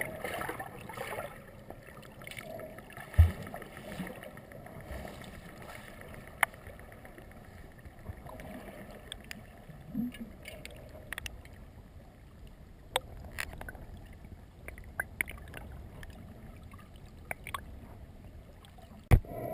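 Underwater sound picked up through a submerged camera: a steady, muffled water rush with scattered sharp clicks and a single louder knock about three seconds in.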